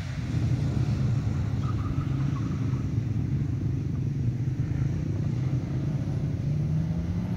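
A 2001 Subaru Legacy Outback rallycross car's engine running hard as it drives a dirt course. The engine grows louder about half a second in and its note climbs near the end as it accelerates.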